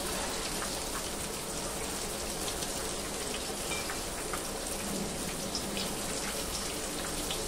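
Malai chicken kebabs deep-frying in a pan of hot oil: a steady sizzle with scattered small pops, the kebabs cooked through and being lifted out.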